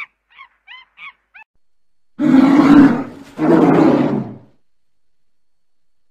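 A few short high chirps from squirrel monkeys, then two low roars from a polar bear, about a second each with a short gap between.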